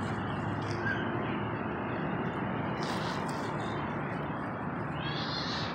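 Steady outdoor background noise with a low even hum, and a brief high rustle about three seconds in.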